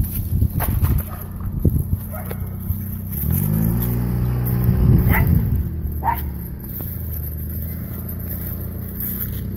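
A small car's engine running at low revs, revving up about three seconds in as it pulls along the driveway and then easing back to a steady hum. A small dog barks twice around the middle.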